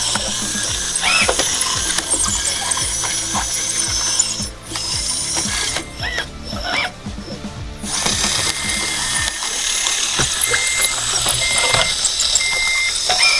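A 1/16 scale Kabolite K963 hydraulic RC track loader working its bucket: electric motors, gears and hydraulic pump whining and grinding, the pitch rising and falling as the pump takes load, with short lulls. In the second half a short beep repeats about every half second.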